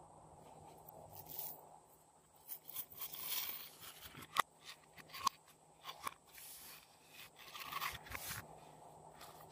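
Hands working a plastic seashell-shaped makeup case over a bowl of slime: scratchy scraping and crunching, with a few sharp plastic clicks.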